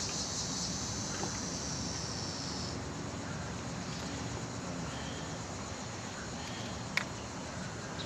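Outdoor ambience: a high, steady chirring of crickets that stops about three seconds in, over a low steady rumble. A single sharp click comes near the end.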